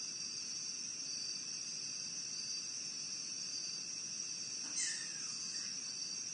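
A steady chorus of night insects such as crickets, chirring in high, even bands. A little under five seconds in, a short high cry slides downward over it.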